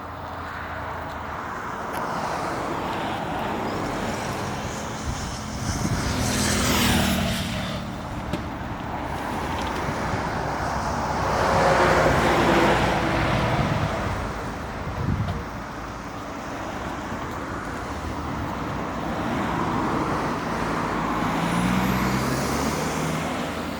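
Car engines and tyre noise from passing vehicles, swelling and fading, loudest about six to seven seconds in and again around twelve seconds in.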